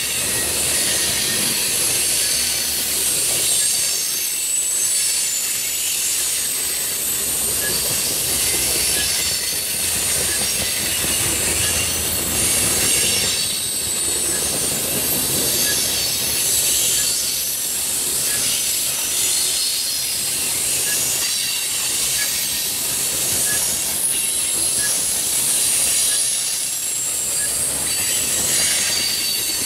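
Covered hopper cars of a freight train rolling past close by: a steady rumble of steel wheels on rail with high-pitched wheel squeal over it.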